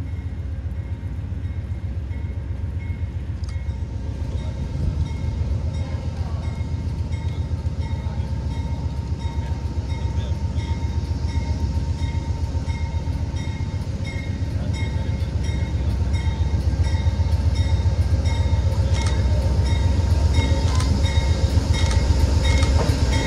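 Amtrak GE Genesis diesel locomotive approaching slowly at the head of a passenger train, its engine growing steadily louder as it nears. Its bell rings steadily throughout, over a steady whine.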